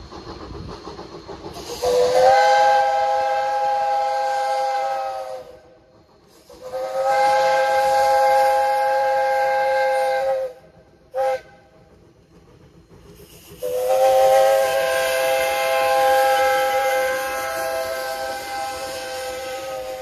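Steam whistle of Jeddo Coal Company #85, a 1928 Vulcan 0-4-0, blown in a long, long, short, long pattern: the grade-crossing signal. The last blast is held for about seven seconds.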